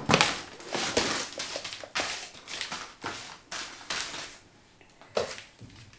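Packaging and wrapped gift packets rustling and crinkling in irregular handling noises as they are rummaged through, dying down near the end.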